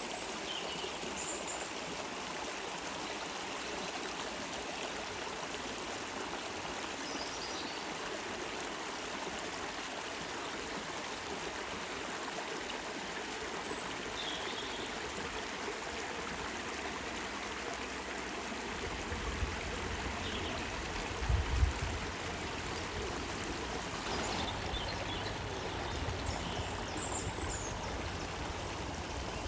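Water of a stream flowing steadily, an even rushing with a light gurgle. About two-thirds of the way in, low rumbling bumps come and go, the strongest a couple of seconds later.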